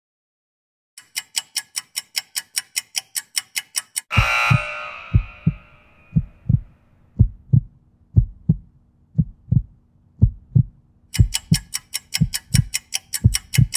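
Workout-timer sound effects. Rapid ticking, about four ticks a second, runs to the end of the work interval, then a loud crash-like burst fades over about a second and a half as the rest period begins. A heartbeat thump follows, lub-dub about once a second, with the rapid ticking coming back over it near the end as the rest counts down.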